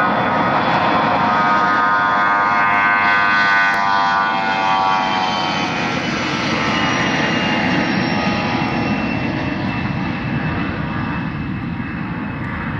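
Beriev Be-200 amphibious aircraft's turbofan engines as it flies past: a steady rushing engine noise with whining tones that slowly fall in pitch, easing slightly near the end.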